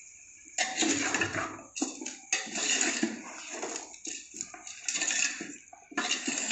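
Pots and utensils being handled during cooking, with scraping and clinks in irregular bursts that start about half a second in.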